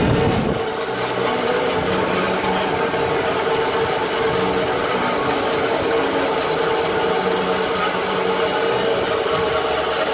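Automatic band saw cutting machine running and slicing a cotton roll into discs: a steady machine hum with the hiss of the blade sawing.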